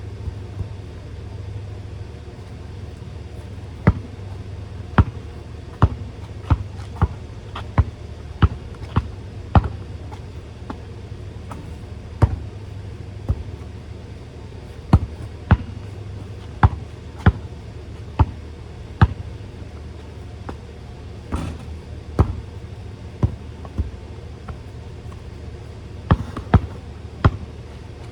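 Basketball bouncing on a hard court. The dribbles come in runs of about two sharp bounces a second, with short pauses between runs, over a steady low hum.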